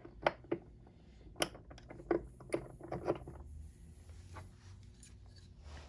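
Light clicks and taps of steel rivet-setting tools being handled and set down on a granite work surface, coming irregularly and thickest in the first three seconds, then a few fainter ones.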